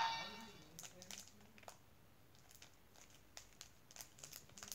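Faint, scattered clicks and crinkles from a Hatchimal toy and its plastic egg shell being handled as the toy is worked free. It follows the toy's electronic tune, which cuts off at the very start.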